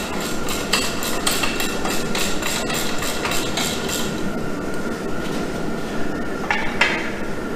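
Quick metallic clicks and knocks from a hand tool working the bolts at an engine stand's mounting head, about four a second for the first half and two more near the end. A steady mechanical hiss sits underneath.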